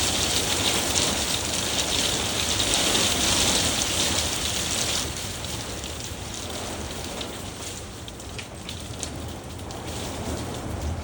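Heavy thunderstorm rain pouring down, easing about five seconds in to a lighter patter with scattered sharp drop ticks, over a low rumble.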